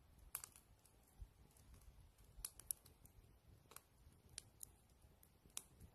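Near silence broken by a handful of faint, sharp clicks at irregular intervals.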